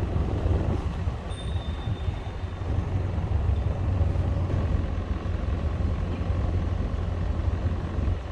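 Canal tour boat's engine running steadily under way, a low drone with a rush of water and wind over it.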